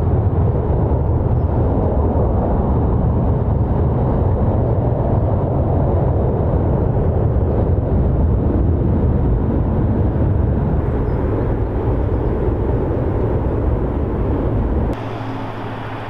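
Boeing C-17 Globemaster III's four turbofan engines, a steady low jet rumble as the aircraft flies in low on approach. Near the end it cuts off suddenly to a quieter, steady hum.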